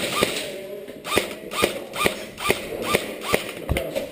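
Quick footsteps on a hard floor, about two a second.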